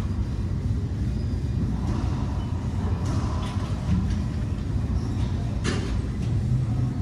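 Steady low rumble, with a single sharp crack a little past five and a half seconds in.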